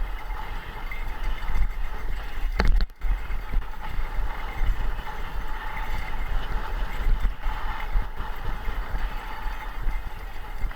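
Steady rolling noise of a vehicle on the move, with wind rumbling on the microphone and one sharp knock a little under three seconds in.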